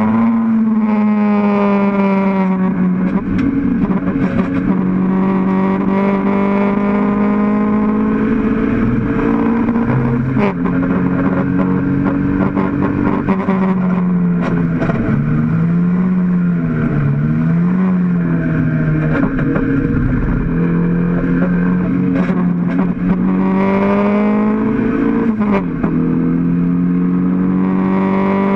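Mk1 Toyota MR2 race car's four-cylinder engine heard from inside the cabin, running hard at high revs. Its pitch climbs slowly and drops sharply at gear changes about 10 and 25 seconds in, with a wavering dip around the middle as the throttle comes off and on through a corner.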